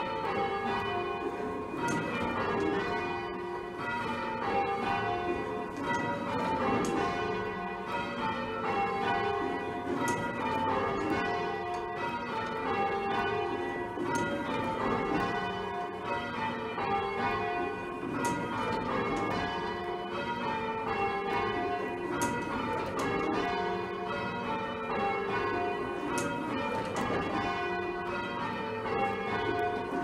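Full-circle church bells rung from ropes, striking in a steady repeating sequence. Each row steps down the scale from the highest bell to the lowest, the pattern of bells rung in rounds.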